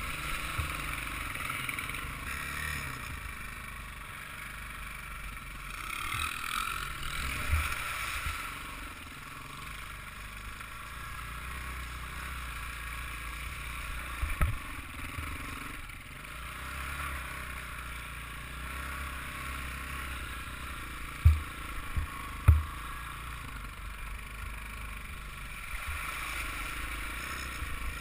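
Off-road motorbike engine running and changing speed as it is ridden over rough ground, heard from a camera mounted on the rider's helmet, with low wind rumble. Several sharp low thumps stand out, the loudest two close together late on.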